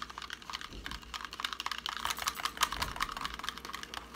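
Wire whisk beating an egg into mayonnaise in a plastic cup: a fast, uneven run of clicks as the wires knock against the cup's sides.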